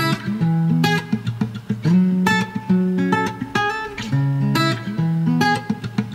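Background music on acoustic guitar, chords strummed about once a second over a plucked bass line.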